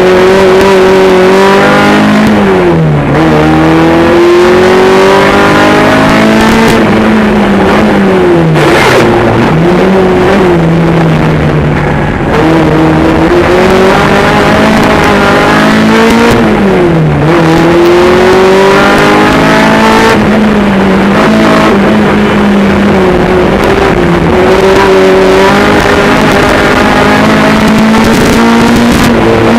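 Honda K24 four-cylinder engine of a Jeep Cherokee offroad racer running hard, its pitch climbing and falling again and again with the throttle. It makes several sharp dips where it drops off and revs straight back up.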